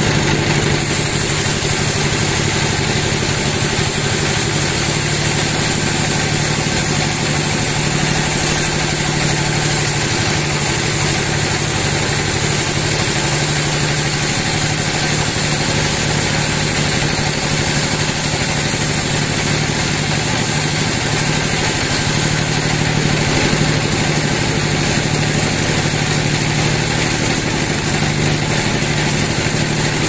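Band sawmill running steadily, its blade sawing lengthwise through a long timber beam over the even drone of the mill's motor.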